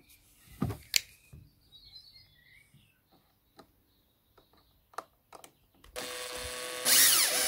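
Cordless drill driving a screw into the Kärcher K5 pressure washer's plastic housing. The drill starts about six seconds in and runs steadily, getting much louder near the end. Before it come a few light clicks as the plastic parts and screws are handled.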